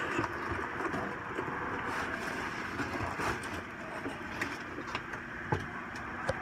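Cardboard packaging being handled as a folded insert is pulled out of a shipping box and set down: rustling and scraping with scattered small knocks and taps, over a steady background hiss.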